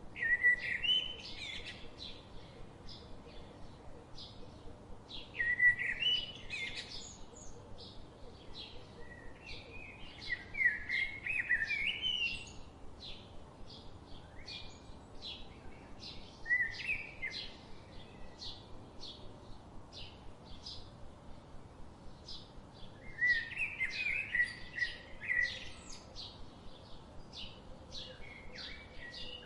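Birds calling and singing at dusk. One bird repeats a short high chirp about twice a second, while another sings louder warbling phrases every few seconds.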